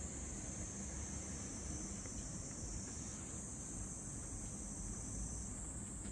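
Insects shrilling in a steady, unbroken high-pitched chorus from an overgrown grassy field, over a low rumble.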